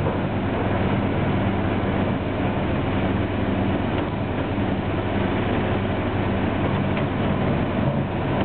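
Pegson mobile jaw crusher crushing stone as a Caterpillar 329D excavator loads it. The diesel engines drone steadily under the constant noise of rock going through the crusher and conveyors.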